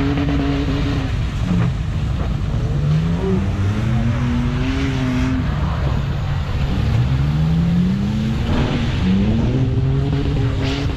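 Off-road 4x4 engines revving hard as they drive through deep mud, the pitch climbing and falling back again and again.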